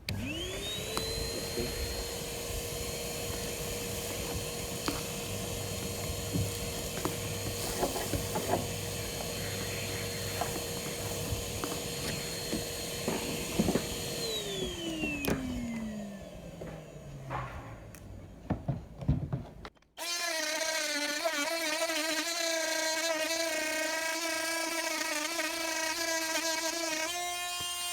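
Oscillating multi-tool cutting fiberglass: the motor spins up at once to a steady high whine with scraping and clicks, is switched off about 14 seconds in, and winds down in a falling pitch. After a break about 20 seconds in, a power tool runs steadily again at a lower pitch.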